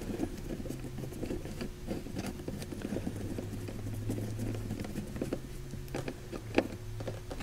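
Hand screwdriver driving a screw into a plastic interior trim panel: faint, irregular small clicks and scratches as the screw turns, with a slightly sharper click about six and a half seconds in. A steady low hum runs underneath.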